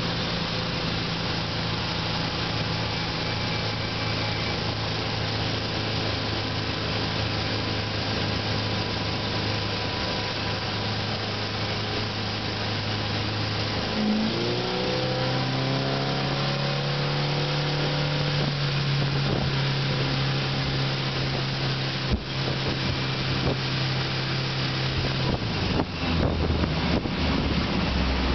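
Volvo B230F four-cylinder engine on a Volvo Penta AQ131 sterndrive, running under way with the steady noise of hull and wake water. About halfway through the engine note climbs and holds higher, then drops back near the end as the boat slows.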